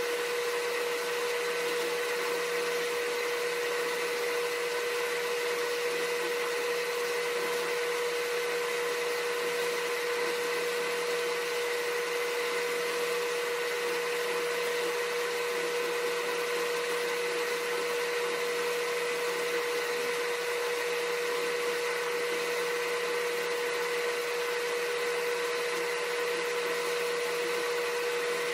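Steady, unchanging machine drone: an even hiss with one constant mid-pitched hum.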